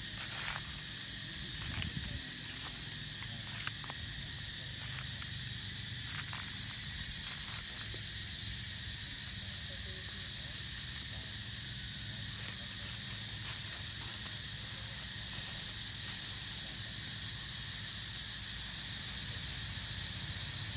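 Steady high-pitched drone of forest insects, with a low rumble underneath and a few faint clicks in the first few seconds.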